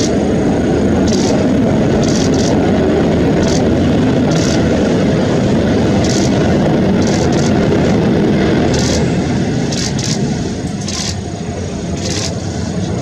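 Jet engines of an Airbus A330-based KC-330 military transport, a loud steady rumble as the aircraft rolls along the runway, easing off after about nine seconds. Short high clicks come now and then.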